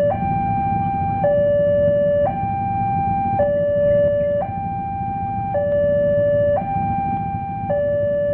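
Railway level-crossing warning alarm sounding a two-tone hi-lo pattern, a higher and a lower electronic tone alternating about every second, as a train approaches, over a low rumble.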